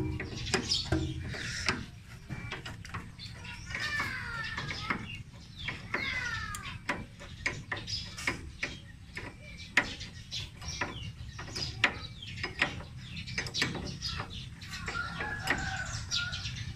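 Irregular metal clicks and knocks of hand tools and parts being fitted on a Yanmar AW70V harvester's reaper blade drive. Birds call in the background, with two descending calls about four and six seconds in.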